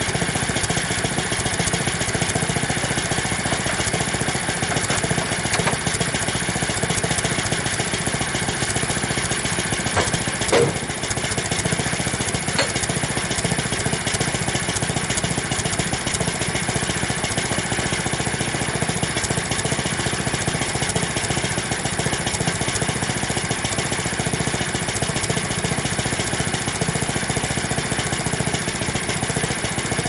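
Small gasoline engine of a Frontier OS23 portable band sawmill idling steadily, not cutting. One sharp knock about ten seconds in, and a fainter click a couple of seconds later.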